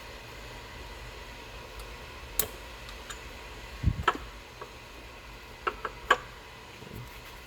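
Scattered sharp clicks and one dull knock from plastic hose fittings, clips and hand tools being handled while hoses are disconnected in an engine bay, over a low steady hum.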